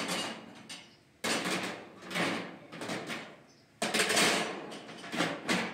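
Metal kitchen utensils clattering and scraping against a pot on a gas stove, in about five separate sharp bursts, each fading quickly.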